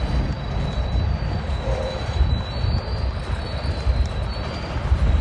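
Slow-moving CSX manifest freight train's covered hopper cars and boxcars rolling past: a steady low rumble of wheels on rail, with a thin steady high-pitched tone over it.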